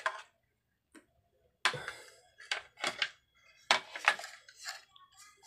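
Metal hand tools, among them an aluminium spirit level, being picked up and set down on a hard tiled floor: a string of short, irregular clinks and knocks.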